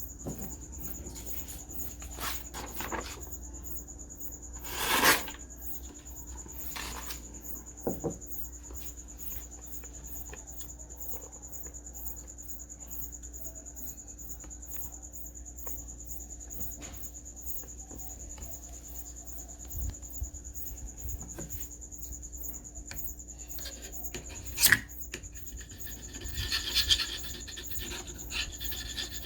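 Pocketknife blade scraping and rubbing against the Glock G19 Gen 5's DLC-coated slide in a few separate strokes, the longest about five seconds in and a cluster near the end, over a faint steady hiss. It is a scratch test of the finish, which the blade fails to mark.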